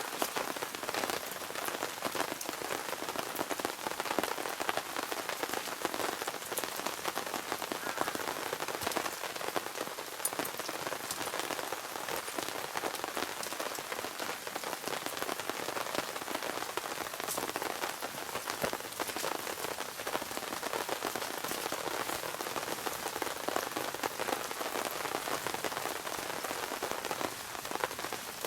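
Steady rain falling, with many separate drops striking close by as sharp little ticks over an even hiss.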